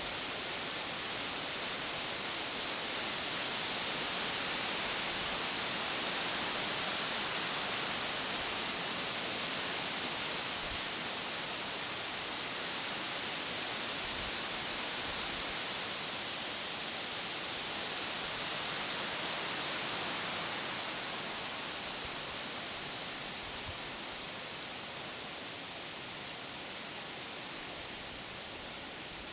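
Steady rushing of fast-flowing water, a stream or river running high after typhoon rain, swelling slightly and easing off toward the end.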